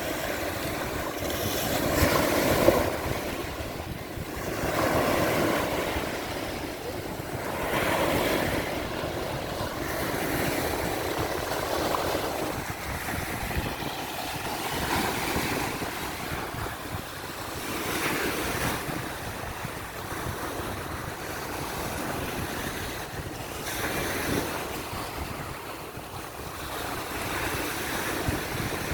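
Ocean waves breaking and washing on the shore, the surf swelling and ebbing every two to three seconds, with wind rumbling on the microphone.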